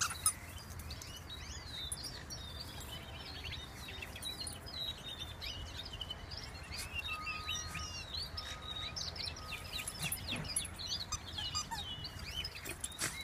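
Small birds chirping and twittering, many short high calls overlapping throughout, including three short level whistled notes in the middle, over a low steady background rumble.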